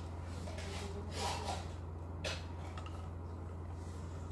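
Faint rustling and a light click, about two seconds in, of plastic toy parts being handled, over a steady low hum.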